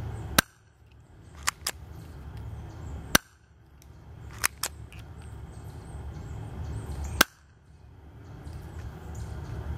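Colt 25 plastic spring airsoft pistol fired three times, a sharp snap each, about three to four seconds apart. Between the shots come pairs of quieter clicks, the slide being pulled back and released to cock the spring for the next shot.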